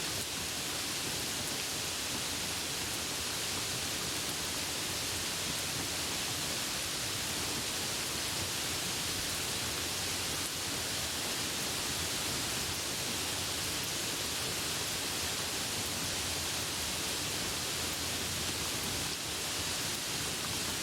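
Rain falling, a steady, even hiss.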